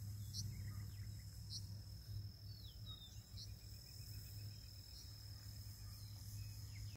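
Outdoor field ambience at dusk: insects trilling steadily on one high tone, with short bird chirps now and then over a constant low rumble.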